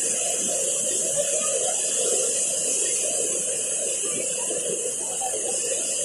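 Steady rushing hiss of a huge jet of water discharging from the Dehar Power House spillway outlet and breaking into spray.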